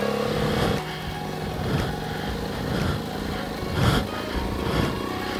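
BMW F800GS Adventure's parallel-twin engine running as the motorcycle is ridden off-road, with a few knocks from the bike over the rough ground, the loudest about four seconds in.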